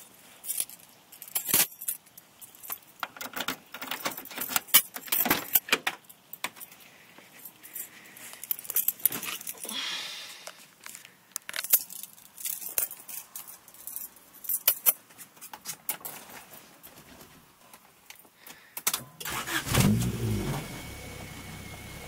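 Keys jangling amid a run of sharp clicks and knocks. About nineteen seconds in, a louder low sound swoops in pitch and settles into a steady low hum.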